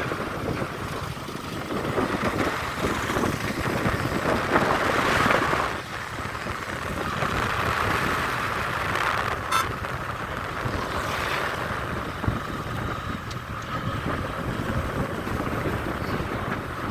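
Vehicle engines running at a road construction site: a continuous rumble that swells and eases as machines and traffic move, with a short click about ten seconds in.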